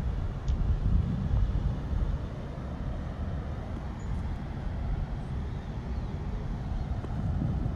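Wind buffeting a phone's microphone: a low, uneven rumble that rises and falls in gusts.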